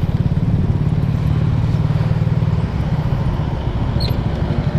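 Motorcycle engine idling, a loud, steady, rapid putter.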